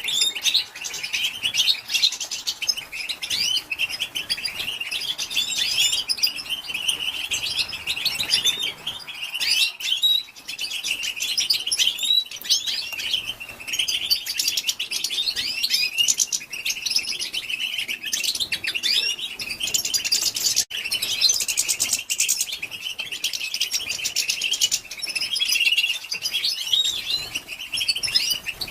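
Female European goldfinch twittering: a dense, continuous stream of quick chirps and short trills. This is the 'batbata' chatter that keepers play to stir male goldfinches into song.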